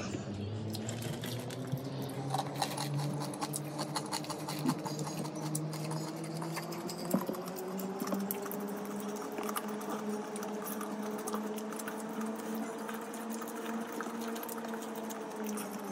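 Close-miked chewing and lip-smacking by a man eating rice with dried anchovies by hand: a dense run of small, wet mouth clicks. Behind it, a faint held tone slowly rises and then falls.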